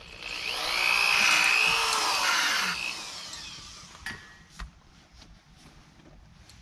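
Corded electric drill running against a wooden gate post for about three seconds, its pitch rising and falling as the trigger is worked, then winding down. A few light clicks follow.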